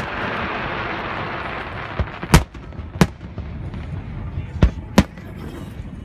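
Aerial fireworks shells bursting: about six sharp bangs at uneven intervals, the loudest about two and a half seconds in, over a hiss that fades during the first second or two.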